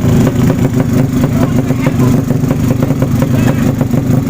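Loud racing underbone motorcycle engines running with a steady low drone and a rough crackle.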